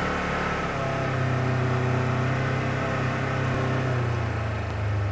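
Side-by-side utility vehicle's engine running steadily as it drives along a trail, its pitch picking up about a second in and easing off slightly near the end.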